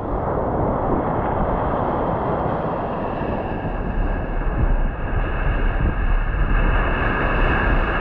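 Wind buffeting the microphone, with a steady motor drone growing louder from about halfway through.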